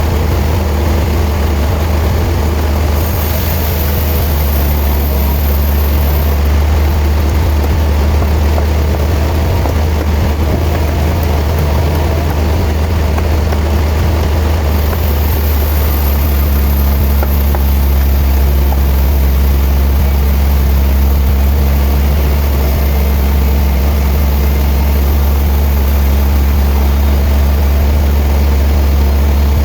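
Sawmill machinery running with a steady, loud low drone and a constant mechanical noise.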